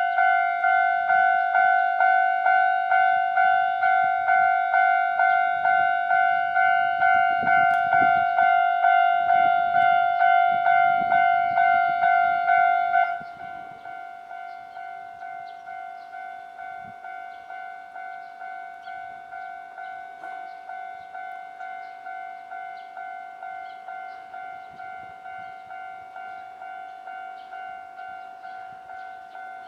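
Japanese level-crossing warning bell ringing, just under two strokes a second. About 13 seconds in it suddenly drops to a much quieter volume and keeps ringing.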